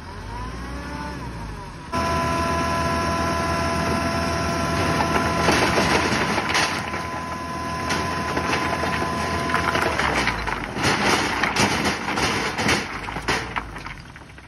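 Loaded tipper truck unloading stones: the engine revs, and about two seconds in a steady whine starts as the hydraulic hoist raises the bed. From about halfway, a load of rocks slides and clatters out of the back. The whine stops about ten seconds in while stones keep tumbling.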